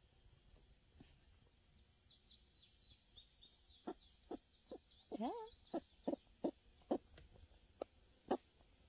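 Pet hens clucking, a series of short soft clucks starting about four seconds in and repeating every half second or so, with one longer bending call about five seconds in.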